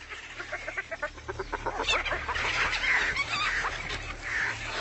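Spotted hyenas giggling, a fast chattering run of high calls that grows louder about a second and a half in, over a low rumble. This is the excited sound hyenas make while crowding onto a carcass.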